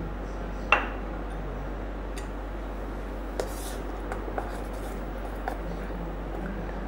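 Metal spoon stirring milk into a thick mango and semolina cake batter in a stainless steel bowl: soft wet squishing and scraping, with a sharp clink of the spoon against the bowl about a second in and a few lighter taps after.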